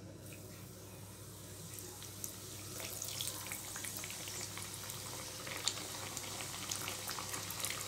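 Raw nimki dough pieces frying in hot oil in a frying pan. The oil sizzles and bubbles, swelling over the first few seconds after the pieces go in, with scattered crackles.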